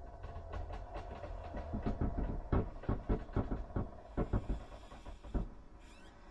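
Old door creaking slowly on its hinges: a run of uneven creaking clicks, closest together in the middle and thinning out toward the end.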